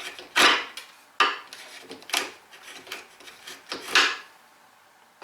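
Mortise chisel working the bottom of a mortise in soft pine: about five short knocks and scrapes of steel on wood roughly a second apart, as the waste is chopped and levered out.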